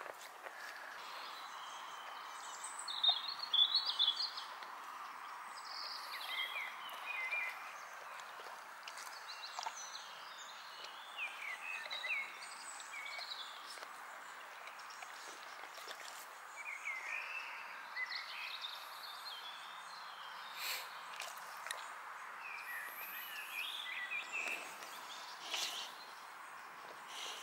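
Wild birds chirping and singing in short phrases, over a faint steady background hiss. A few sharp crunches come in between as a boxer dog bites into a whole cucumber.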